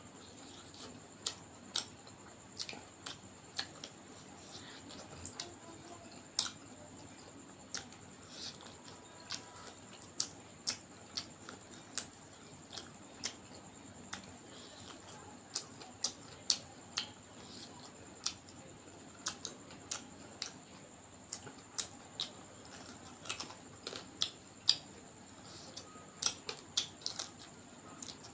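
Close-miked eating sounds: a person chewing duck curry and rice, with irregular sharp mouth smacks and clicks, about one or two a second.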